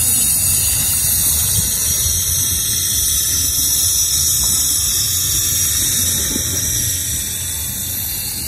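Steady seaside ambience: the sea washing against the concrete embankment and breakwaters, heard as an even high hiss over a low rumble.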